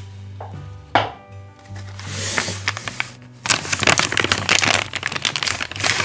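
Clear plastic bag crinkling and rustling as a metal armature plate is pulled out of it, loudest over the last two and a half seconds, with a single knock about a second in. Background music plays throughout.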